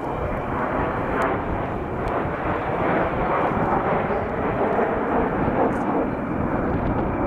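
Several BAE Hawk T1 jets flying past in formation: a steady rush of jet-engine noise that grows slightly louder about a second in.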